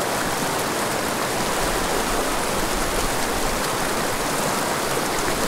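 Small pocket-water mountain creek rushing over rocks: a steady wash of running water.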